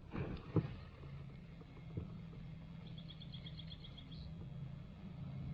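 A few hard knocks in the first two seconds, over a steady low engine hum. About three seconds in, a bird gives a short, rapid, high trill.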